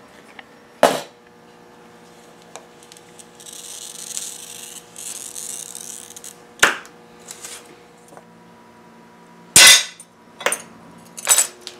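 A hand glass cutter scoring a sheet of glass, a high scratchy hiss of a few seconds, followed by several sharp cracks and snaps as the glass is broken along the score with glass-breaking pliers, the loudest snap near the end. A single sharp click about a second in.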